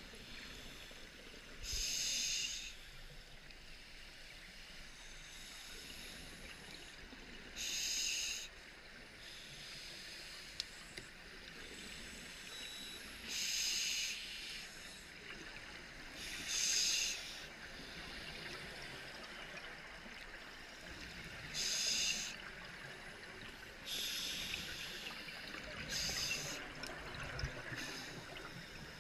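A scuba diver's regulator releasing exhaled bubbles, heard underwater as about seven bursts of bubbling, each about a second long and a few seconds apart, over a steady faint hiss.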